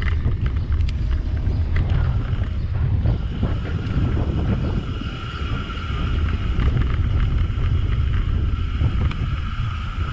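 Wind buffeting the microphone of a camera riding along on a bicycle, a heavy low rumble, with a few light ticks near the start and a steady high hum from the moving bike joining after about three seconds.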